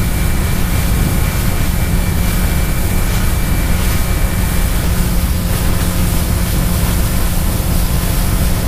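A 90 hp outboard motor running steadily at speed as the fishing boat planes, with the rush of wind and water over it.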